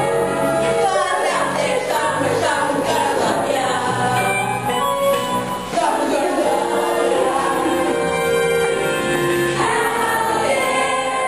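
A chorus of voices singing a show tune together over musical accompaniment with held low notes.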